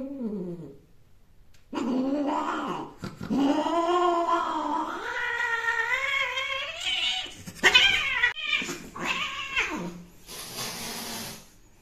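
Domestic cat caterwauling: several long, wavering yowls, one after another, the mating yowl of cats. A short hiss-like noise comes near the end.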